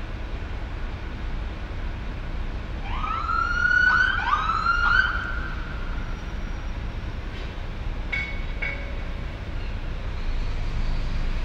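Steady city traffic rumble, with an emergency vehicle's siren giving two rising whoops about three to five seconds in. Three short high blips follow a few seconds later.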